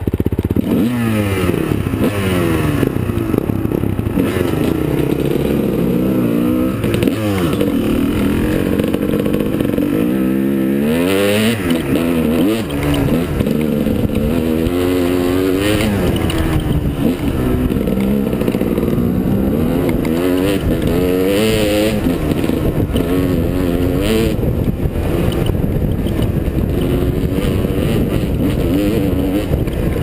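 Dirt bike engine revving up and down again and again as the bike accelerates, eases off and accelerates along a dirt trail, heard from the rider's helmet.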